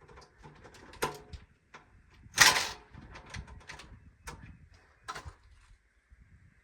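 Scattered knocks and clicks of a hand tool and hard plastic chair parts being handled during assembly, with one louder, longer scraping noise about two and a half seconds in.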